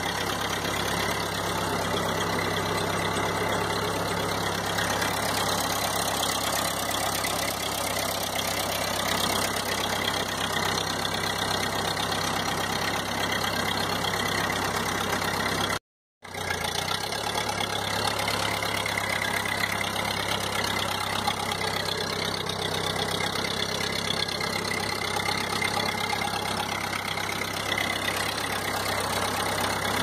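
Ford 8N farm tractor's four-cylinder flathead gasoline engine running steadily as the tractor drives along at low speed. The sound cuts out briefly about halfway through.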